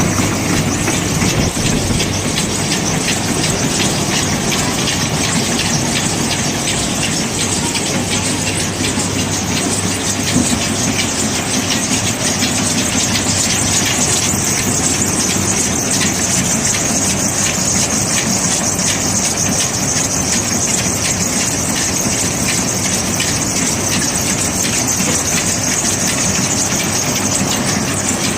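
Small rice husking and milling machine running steadily as grain passes through it, a constant machine hum under a dense rattling hiss of rice and husks.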